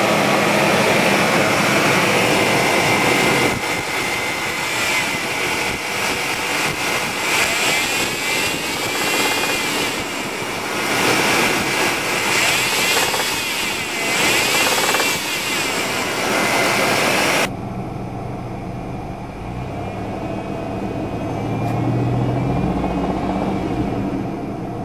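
A 4.3L Vortec V6 engine running, with a repetitive knock from deep inside the motor that the owner suspects is rod knock. About two-thirds of the way through the sound drops abruptly to a quieter, deeper engine note, which rises briefly near the end.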